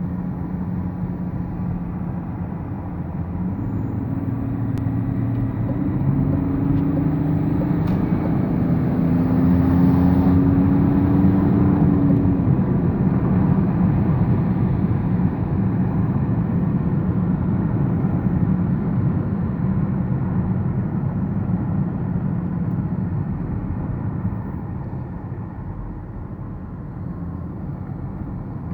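BMW E39 530d's straight-six turbodiesel running under way with its turbo whine, the engine note rising in pitch and loudness over the first ten seconds or so, then easing off gradually.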